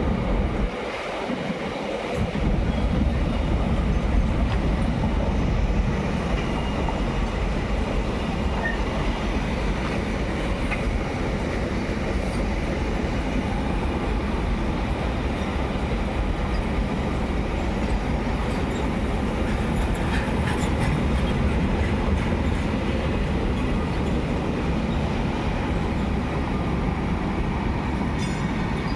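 Container wagons of a long freight train rolling past, a steady rumble with the rattle and clack of wheels over the rail.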